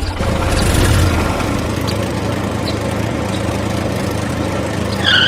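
A small engine runs steadily with a low, even hum.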